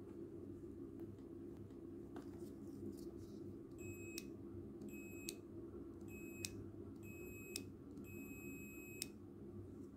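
Multimeter continuity beeper sounding five times in a row from about four seconds in, a steady high beep of uneven length (the last about a second long), each one starting and stopping with the click of a car trunk release push-button being pressed and let go. The beeps show the button's contacts closing the circuit.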